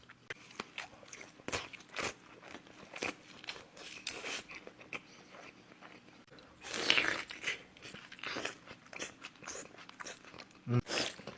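Close-miked eating of a seafood boil: crunching, chewing and wet mouth smacks in quick irregular clicks. A louder noisy burst comes about seven seconds in.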